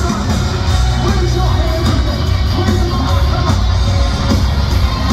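Rock band playing live at full volume: heavy drums and bass with distorted electric guitar, recorded from the arena stands on a phone, so the low end is boomy.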